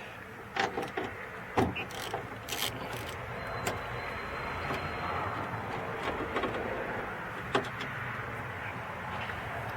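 A few sharp clicks and knocks from tools working on the car door in the first three seconds, then a steady rumble of a passing vehicle.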